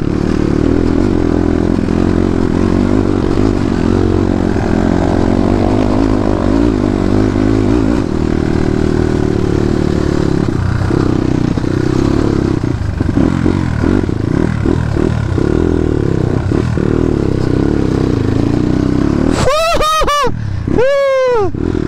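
Dirt bike engine running, its pitch shifting with the throttle; near the end it is revved sharply up and down in several quick blips.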